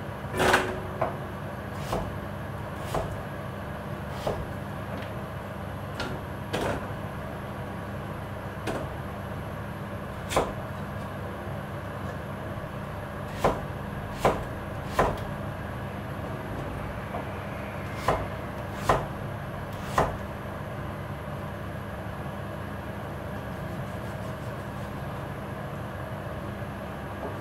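Kitchen knife cutting through daikon radish on a plastic cutting board: irregular sharp knocks as the blade hits the board, stopping after about twenty seconds, over a steady low hum.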